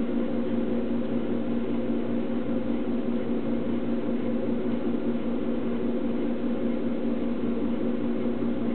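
A steady, even mechanical hum with a few level tones in it, unchanging throughout.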